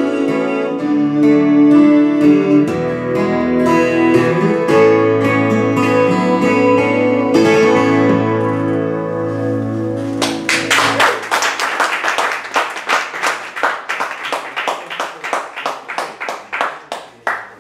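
Two acoustic guitars playing sustained, ringing chords and a melodic line that end about ten seconds in. A run of sharp, evenly spaced percussive strokes, about four a second, follows and fades away.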